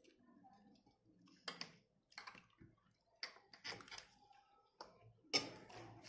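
A metal spoon clicking and clinking lightly on a plate during eating, a handful of short, irregularly spaced clicks, the loudest near the end.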